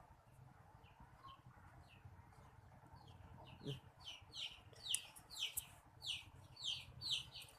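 A bird's repeated short, high chirps, each falling in pitch, about two a second, starting about three seconds in, with one short low knock near the middle.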